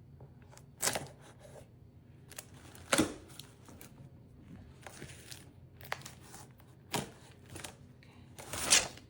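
A cardboard shipping box being opened: packing tape and cardboard flaps being slit and ripped in a series of short, sharp tearing scrapes. The loudest and longest rip comes near the end.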